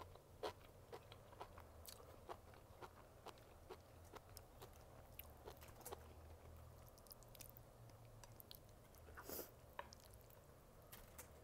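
Close-miked mouth sounds of a person chewing and biting enoki mushrooms: soft, irregular wet clicks and smacks, a few a second, with one louder, longer one a little after nine seconds in.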